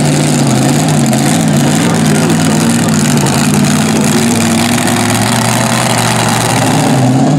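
Mini modified pulling tractor's supercharged engine running hard and loud through open headers under load, its pitch wavering up and down as the revs shift.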